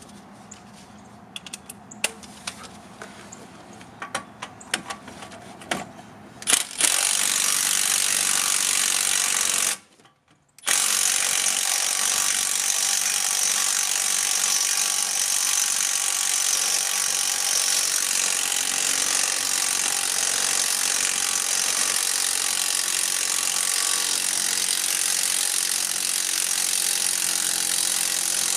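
Milwaukee mid-torque cordless impact wrench hammering steadily on a front hub bearing bolt through an extension, with one short pause about a third of the way in. Before it starts, light clicks and clinks of the socket going on the bolt.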